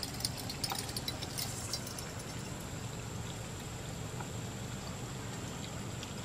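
Quiet, steady outdoor background of river water, with a few light clicks in the first two seconds.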